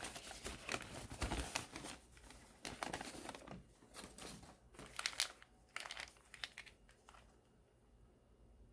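Packaging of a medicine delivery being handled and unwrapped: irregular crinkling and rustling, dying away over the last couple of seconds.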